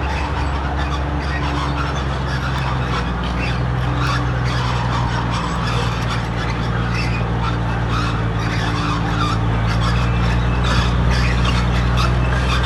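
Heavy diesel earthmoving machine running steadily under load, a deep engine hum with scraping and grinding noise over it.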